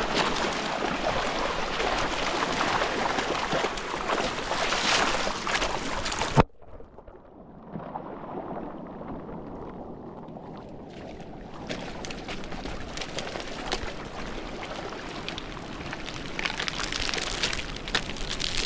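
Steady rushing of a fast mountain river, an even hiss. About six seconds in it cuts off suddenly with a click. It comes back quieter and duller, then builds back up to the full rush over the next several seconds.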